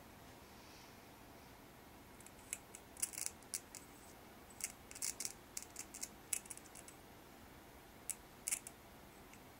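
Electrical arcing: a graphite pencil lead on a 12 V battery sparking against a copper cap, giving irregular clusters of sharp crackles and snaps from about two seconds in until near the end.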